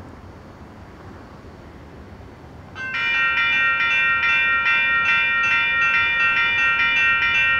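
Railroad grade-crossing warning bell starts suddenly about three seconds in and rings in rapid, even strokes: the crossing signals have activated for an approaching train. Before it there is only a low hum of street background.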